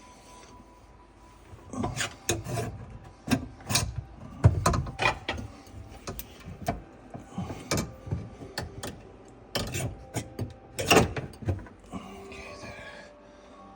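Dishwasher parts being handled: a run of irregular knocks, clicks and scraping that starts about two seconds in and dies away about two seconds before the end.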